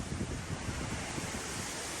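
Strong wind rushing steadily, with irregular low gusts buffeting the microphone.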